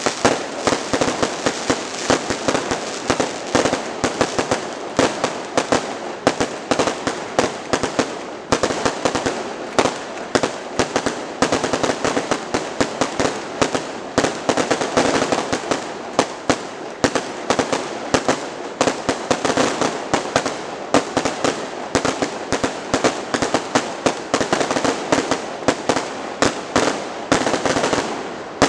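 Fireworks display: a dense, unbroken barrage of bangs, several reports a second, over a constant rumble of explosions.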